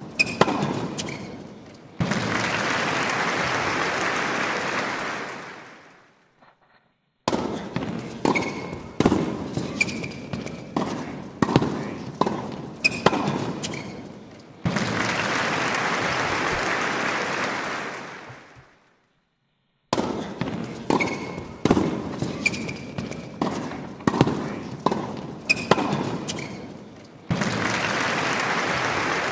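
A repeating soundtrack loop: a run of sharp bangs and knocks with short ringing tones, then several seconds of steady noise that fades out. After a brief silence the cycle starts again, about every thirteen seconds.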